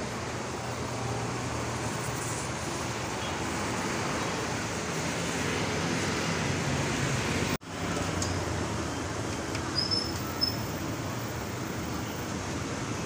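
Street ambience: steady traffic noise, broken for an instant about seven and a half seconds in, with a couple of short high chirps a little after.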